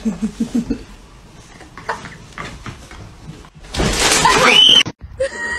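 A dog and a cat scuffling: a sudden loud commotion with a rising high cry about four seconds in, which cuts off abruptly.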